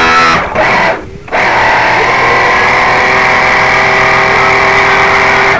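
Background music with sustained chords, dipping out briefly about a second in.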